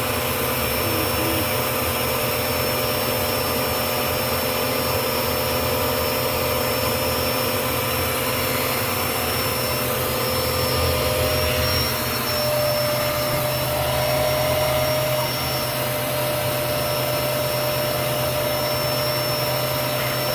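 Vacuum cleaner running steadily, sucking up spilled cereal. Its whine steps up slightly in pitch about twelve seconds in.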